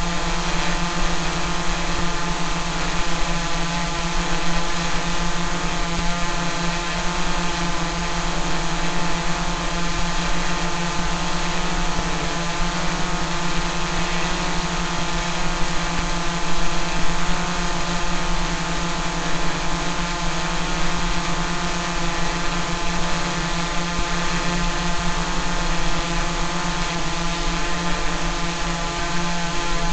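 Quadcopter drone's propellers and motors buzzing steadily at an even pitch.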